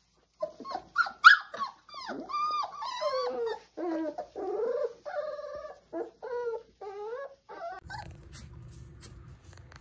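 Young puppies, about three weeks old, whining and yelping in many short, high cries that bend up and down, one after another. About eight seconds in the cries stop and a low steady hum takes over.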